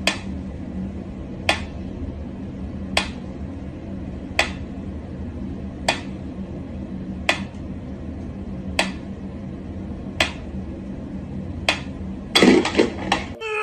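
Mechanical pyramid metronome ticking slowly, one sharp tick about every second and a half, over a steady low hum. Near the end comes a louder cluster of knocks and rattles as a cat bats at the metronome.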